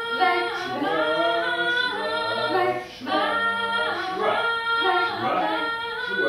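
Unaccompanied singing by a woman's voice in long held and sliding notes, with a brief break about three seconds in.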